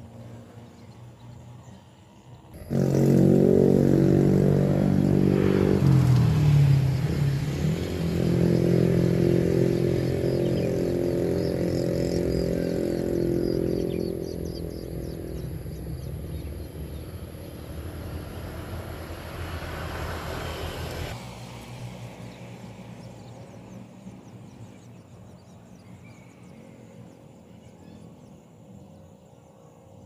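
An engine running close by. It starts abruptly about three seconds in, dips in pitch and comes back up a few seconds later, runs steadily, then weakens and cuts off abruptly a little after twenty seconds.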